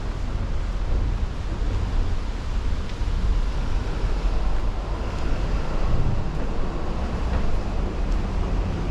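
Strong wind buffeting the microphone in a low rumble over the steady hiss of rain, with road traffic under it.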